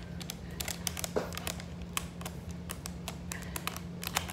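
Scattered light clicks and taps of a resin ball-jointed doll's joints as its limbs are bent and moved by hand; the doll is strung quite tight. A steady low hum runs underneath.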